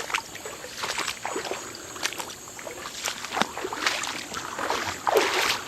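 Footsteps wading upstream through shallow creek water: irregular sloshes and splashes, with a louder splash about five seconds in.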